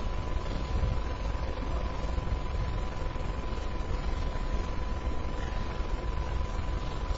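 Steady hiss and low rumble with a thin constant whine running through it: the background noise of a low-quality TV broadcast recording, with no ball strikes standing out.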